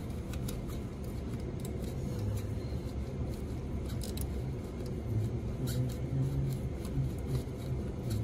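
Faint scattered clicks and light scraping as a loosened 12 mm bolt is unthreaded from a starter motor by a gloved hand, over a steady low hum.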